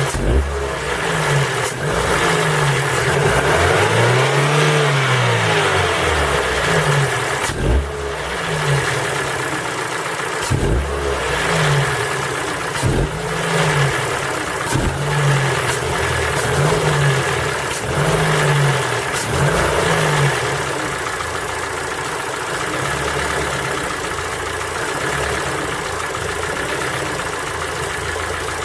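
Ford Focus 3's 1.6-litre PNDA petrol engine blipped repeatedly, the revs rising and falling about ten times, then settling to a steady idle about 21 seconds in. It is run cold to show a knock that is taken for piston pin knock.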